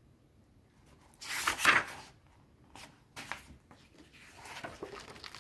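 A hardback book being handled: a loud rustle of paper and a plastic dust jacket about a second in, then lighter rustles and taps as it is turned over and leafed through.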